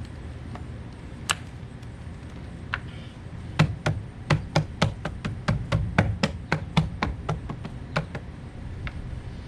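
Centre cap being knocked into place on a plastic Tesla wheel cover: a couple of single sharp taps, then a quick run of about twenty knocks, about four a second, that seat the cap.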